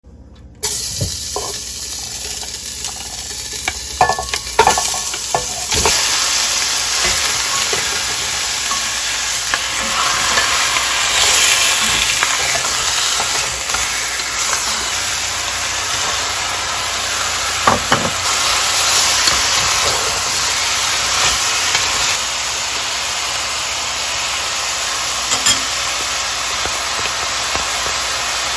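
Duck pieces sizzling and steaming in a hot stainless-steel pot, stirred with a wooden spatula, with now and then a sharp knock of the spatula against the pot. It starts about half a second in.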